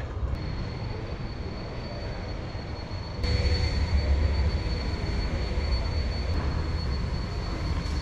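Steady low rumble and background noise of a large, busy exhibition hall, with a faint steady high whine; the rumble gets louder about three seconds in.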